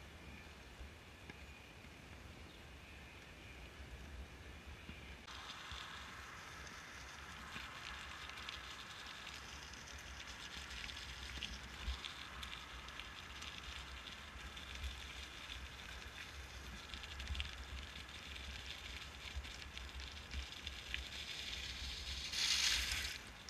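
Bicycle tyres rolling on a road, then crunching and crackling over a gravel track from about five seconds in, with a steady low rumble underneath. Near the end, a loud brief splash as the bike rides through a puddle.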